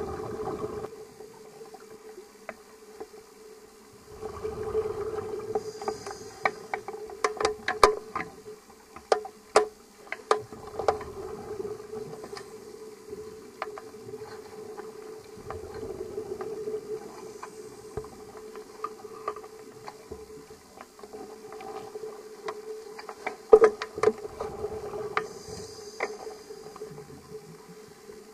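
A scuba diver breathing underwater, heard through an underwater camera housing. Bursts of exhaled bubbles rush out about every six seconds, with a faint regulator hiss on the in-breaths. A run of sharp clicks comes partway through and a louder single click later, over a steady hum.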